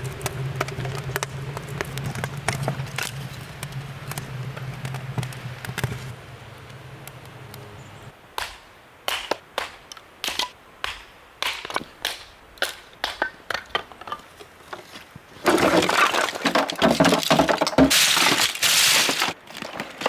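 Sharp, separate knocks of kindling being split on a chopping block, then, about 15 seconds in and loudest, a dense clatter and crunch of oyster shells being scooped into a plastic crate for about four seconds. The first few seconds hold crackling over a steady low hum, which fits the kindling fire just lit.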